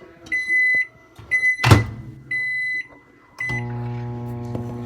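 Microwave oven being set: four short keypad beeps with a sharp click among them, then the oven starts and runs with a steady low hum about three and a half seconds in.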